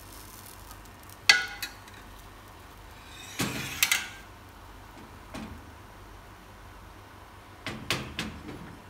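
Metal frying pan clinking and knocking against the gas stove's grate as it is lifted, tilted to spread thin crepe batter, and set back down: several separate knocks in clusters, the loudest about a second in with a brief metallic ring.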